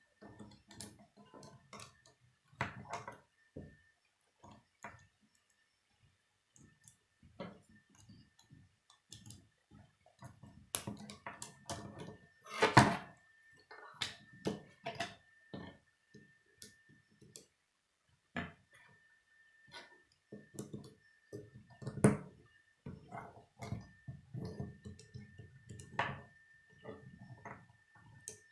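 Plastic K'nex rods, connectors and wheels clicking and clattering as they are handled and snapped together on a wooden table: irregular light clicks, with the loudest clatter about halfway through.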